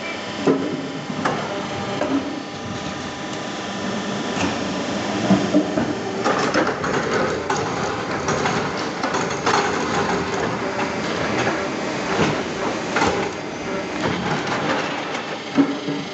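A 5-foot log debarker stripping bark from sengon logs: steady mechanical running with frequent irregular knocks and clatter as the bark is torn off.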